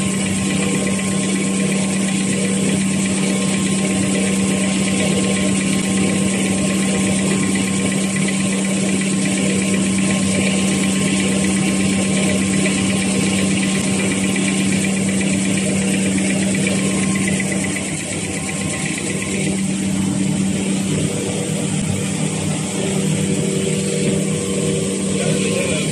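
Automatic facial tissue making machine running steadily: continuous mechanical machine noise over a constant low hum, which changes and turns less even about eighteen seconds in.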